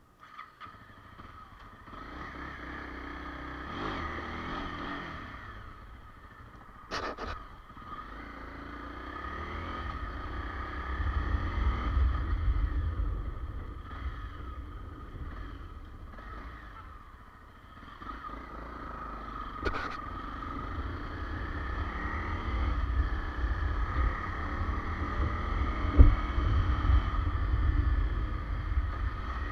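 Honda CRF250 Rally's single-cylinder engine running under way, its revs rising and falling as the bike rides along, with a low wind rumble on the microphone. A couple of short sharp clicks sound, about seven seconds in and again near twenty seconds.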